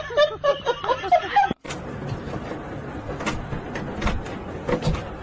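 Short pitched vocal sounds, then, after a cut about a second and a half in, a cat pawing at a round door knob: the knob and latch click and rattle irregularly.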